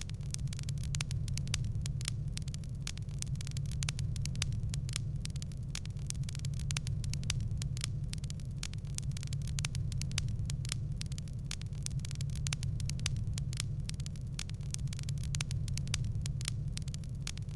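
Wood fire crackling in a fireplace: a dense, irregular run of small crackles and pops over a steady low rumble.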